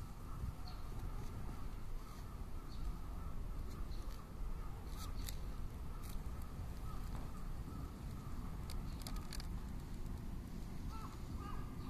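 Outdoor ambience: a steady low rumble with distant birds calling and a few sharp clicks, with short repeated calls starting near the end.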